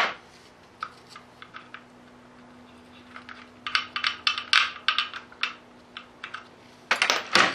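Old brittle, cracked padding on the side of a bare Cummins diesel engine block, which he guesses is a heat shield, being picked and broken off by a gloved hand. Irregular dry crackles and clicks, a few at first, thickening about three seconds in and loudest near the end.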